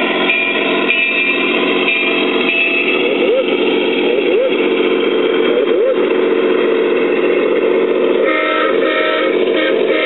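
Sound-equipped large-scale model diesel locomotive playing its digitally sampled engine sound steadily through its onboard speaker, with horn blasts near the end.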